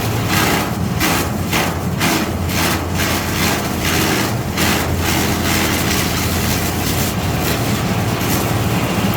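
Chaff cutter running with a steady motor drone, its blades chopping maize stalks and grass in quick repeated strikes through the first half.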